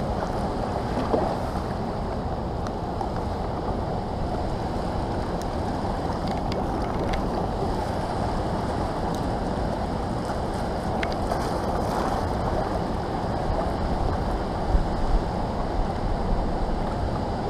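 Fast, high river current rushing steadily over a rocky bed, with wind rumbling on the microphone.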